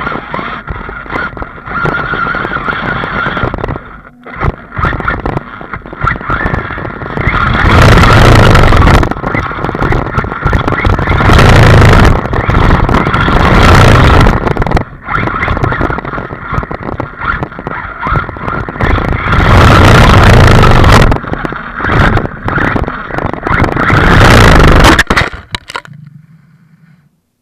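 Arrma Talion brushless RC truggy being driven hard over rough ground, with a steady high motor whine and tyre noise. Several very loud bursts of jolting and rushing noise come as it speeds and bounces over bumps. The noise dies away shortly before the end.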